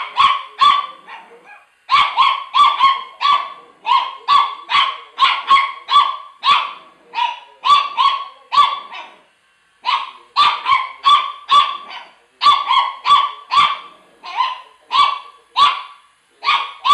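Chihuahua barking rapidly and excitedly at a hovering toy helicopter, about two sharp barks a second. The barking comes in runs, with short breaks about two seconds in and again about nine seconds in.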